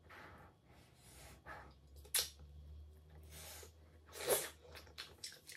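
Close-up eating sounds of rice and pasta with stew eaten by hand: soft mouth and finger noises, a sharp smack about two seconds in, and a louder mouth sound just after four seconds as a handful goes into the mouth. A faint low hum lies underneath.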